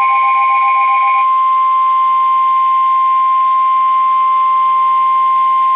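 A steady, loud single-pitch alarm tone near 1 kHz, the kind used as the NOAA Weather Radio warning alarm tone ahead of a new warning. Under it a second, pulsing beeping tone runs for about the first second, then stops.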